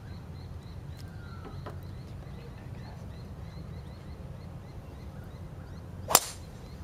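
A golfer's driver striking the ball off the tee: one sharp, loud crack about six seconds in, after a few seconds of quiet while he sets up and swings.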